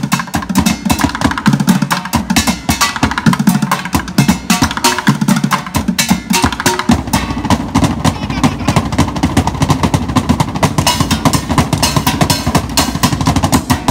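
Fast percussion drummed with sticks on stainless steel pots, pans and stove carts: dense, rapid strikes with a ringing metallic edge, growing denser and steadier from about halfway.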